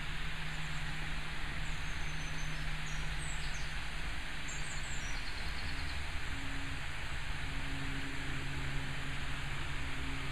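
Steady outdoor background noise under a low electrical hum picked up by the microphone, with a higher buzz that cuts in and out: interference the uploader puts down to personal radio phones. A few short high chirps come in the first half.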